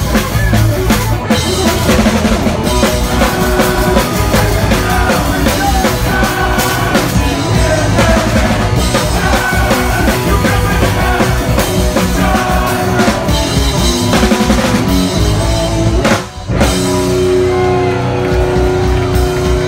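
Hardcore punk band playing live, loud, with a pounding drum kit, distorted guitars and vocals. About sixteen seconds in the music stops abruptly, then sustained notes ring on.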